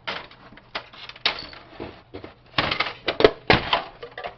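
Plastic and metal printer parts clattering and cracking as the printer is pulled apart by hand: a string of irregular sharp knocks, thickest about two and a half to four seconds in.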